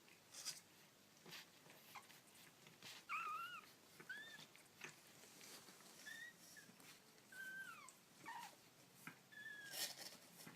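Young kittens mewing: about six short, high-pitched mews, some rising and some falling in pitch, among faint clicks and rustles.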